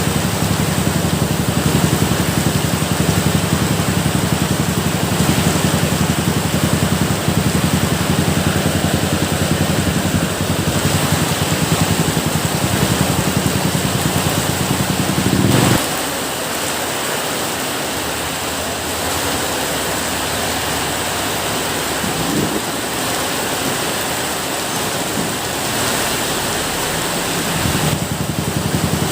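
Steady rain, an even hiss, with a low rumble underneath that cuts off suddenly about halfway through and comes back near the end.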